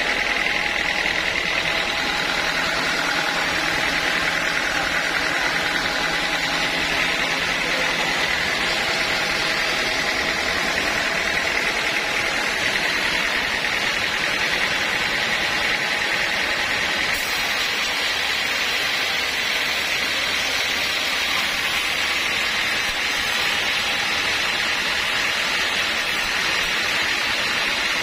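Sawmill machinery running steadily: a continuous, even machine noise with a high whine-like band that does not change.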